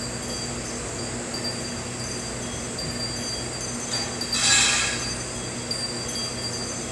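Small metal pocket knife being handled, giving one short metallic jingle about four and a half seconds in, over a steady background hum.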